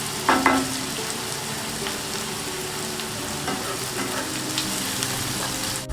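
Chopped onions sizzling steadily as they fry in hot oil and ghee to a light brown, with a few faint clicks from stirring.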